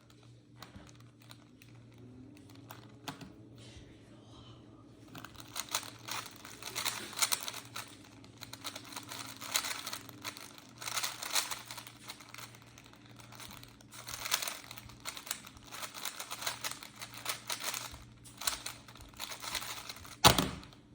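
A 3x3 speedcube turned fast during a timed solve: a few faint clicks at first, then rapid, dense plastic clicking and clacking for about fifteen seconds, ending with one sharp slap near the end.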